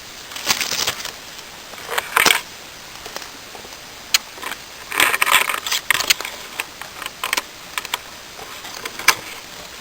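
Close handling noises: irregular sharp clicks and short scratchy rustles, the loudest bunched about two seconds in and again around five to six seconds in.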